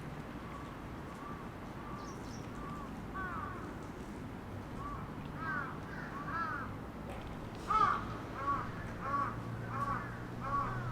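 Bird calling in a series of short, arched calls, faint at first and much louder from about eight seconds in, then repeating roughly twice a second. A steady low hum sits underneath.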